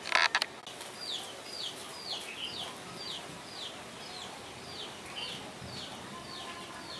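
A small bird repeating a short, high, falling call about twice a second. A brief loud burst of noise comes right at the start.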